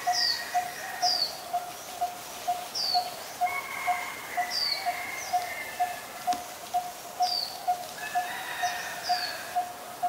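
Coppersmith barbet calling its monotonous 'tonk-tonk-tonk': short, hollow notes all on one low pitch, repeated a little over twice a second without a break. Another bird's short, high, down-slurred chirps sound over it now and then.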